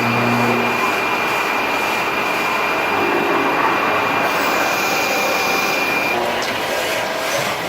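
Machine tool running during metal machining: a steady loud whir with a high whine that stops about six seconds in.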